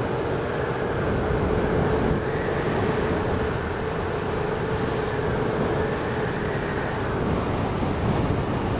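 Yamaha XSR700's parallel-twin engine running at a steady cruise with a constant tone, under heavy wind noise on the microphone.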